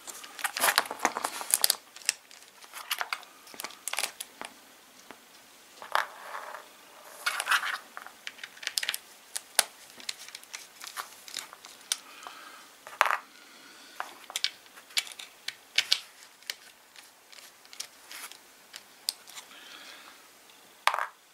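A hand screwdriver turning out the small Torx screws that hold the motor in a cordless mini chainsaw's plastic housing, during a motor swap. Scattered clicks and short scrapes of the tool and of parts being handled come in several bunches.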